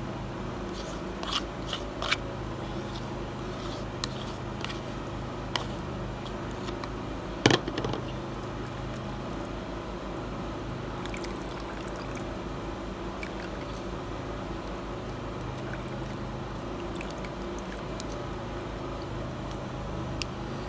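Plastic spatula pressing and scraping grated ginger pulp against a small metal mesh strainer, squeezing out the last of the ginger juice: scattered soft scrapes and squishes, with one sharper click about seven and a half seconds in. A steady low hum runs underneath.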